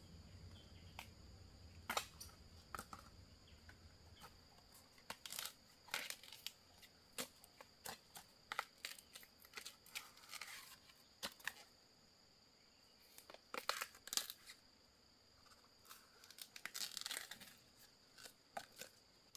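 Faint, irregular sharp snaps and short tearing, rustling sounds at uneven intervals, with a couple of longer tearing rasps about ten and seventeen seconds in, over a faint steady high tone.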